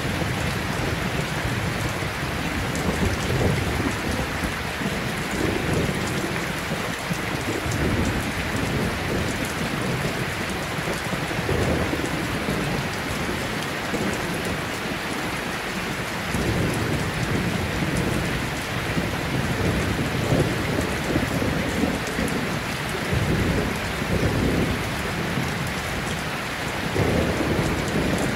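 Steady rain, with low rumbles of thunder swelling and fading every few seconds.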